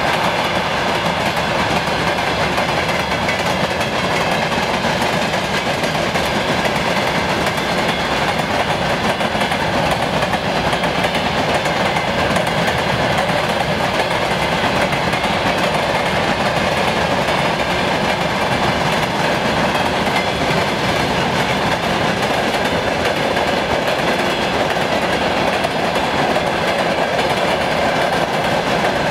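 Freight train of open-top gondola wagons rumbling past at close range: a loud, steady noise of the wagons' wheels running over the rails.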